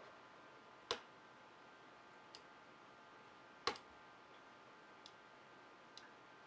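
Logitech G703 mouse buttons clicking: two sharp clicks about three seconds apart, the second slightly doubled, with a few fainter clicks between and after. The left button is the faulty one being clicked.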